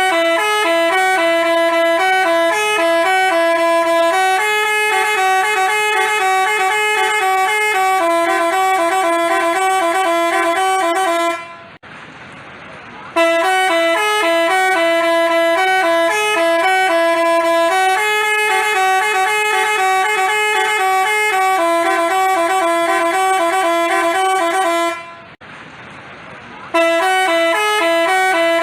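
Telolet basuri horn playing a short stepping tune of a few notes. It runs as three long passes, with a brief break between them about 12 seconds in and again about 25 seconds in.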